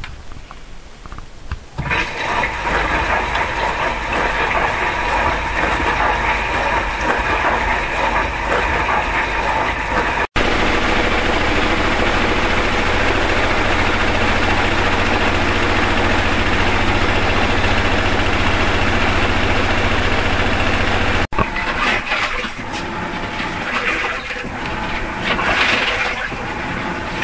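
Household electrical appliances running: steady mechanical and airflow noise with a low hum, in three separate recordings joined by sudden cuts about ten and twenty-one seconds in.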